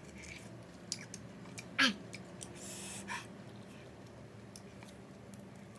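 Close-up mouth sounds of eating juicy young pineapple: small wet clicks of chewing, a short falling "mm" about two seconds in, and a hissing intake of breath soon after.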